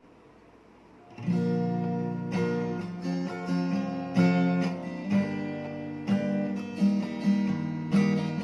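Guitar strumming chords as a song's instrumental intro, starting about a second in after faint hiss, with a fresh strum every half second or so.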